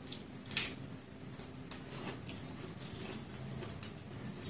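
Close-up sounds of a person eating rice and sambar by hand: wet chewing and sharp mouth clicks, the loudest about half a second in, with fingers squishing rice on the plate.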